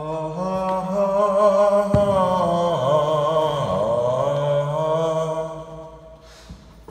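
A man's voice singing one long held 'ahh' note, steady at first, then wavering and dipping in pitch in the middle before fading out. A single knock sounds about two seconds in.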